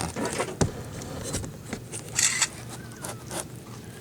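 Irregular soft scrapes, rustles and clicks from the birthing bed as the mother cat licks and nuzzles her newborn kitten, with one louder scrape about two seconds in.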